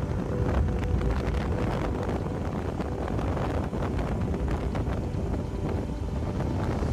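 Wind buffeting the microphone of a moving motorcycle, with the bike's engine running underneath as a steady rumble.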